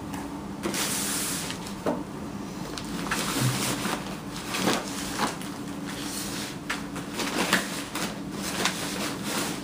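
Plastic packaging rustling and crinkling in irregular bursts as a furry costume is pushed and folded into a clear plastic zip-up bag.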